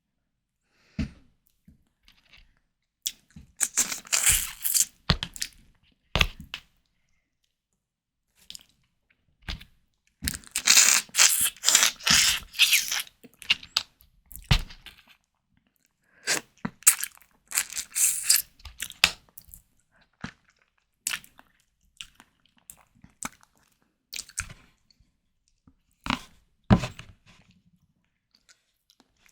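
Close-miked chewing of prawn cocktail: wet, crunchy mouth sounds that come in three bursts of a few seconds each, with single sharp clicks in the pauses between them.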